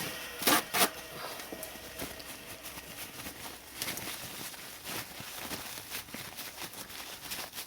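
Two sharp knocks close together about half a second in, then light scattered clicks and rustling: a freshly polished metal part being picked up and handled.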